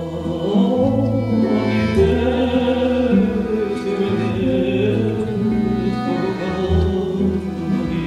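Button accordion (bayan) and violin playing a slow, wavering Russian folk-song melody over sustained accompanying notes.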